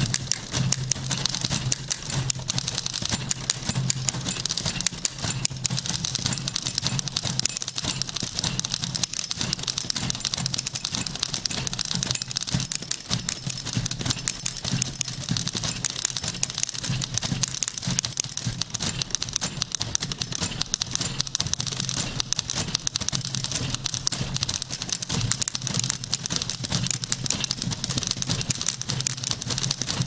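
Several manual typewriters, among them an Olympia, typed together as a percussion ensemble: a dense, continuous clatter of keys striking.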